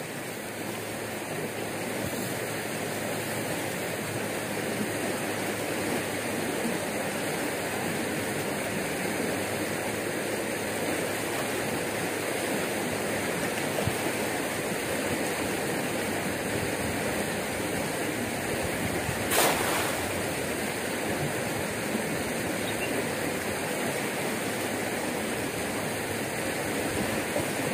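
Swollen, muddy floodwater in a small stream running steadily with a continuous rushing sound. A brief sharp knock or splash cuts in once, about two-thirds of the way through.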